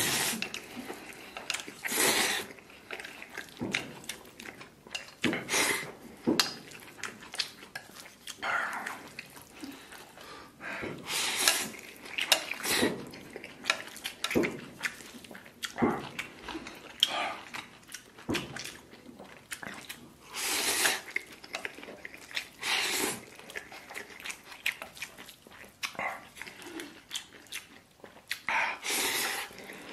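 A person slurping spicy instant noodles in short, loud sucking bursts every second or few, with chewing in between.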